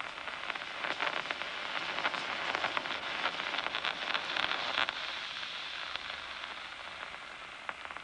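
Amplified nerve signal from a locust's nerve cord played through a loudspeaker: a steady hiss with crackling clicks, which are nerve impulses (action potentials). The clicks come thickly in the first five seconds or so and thin out after.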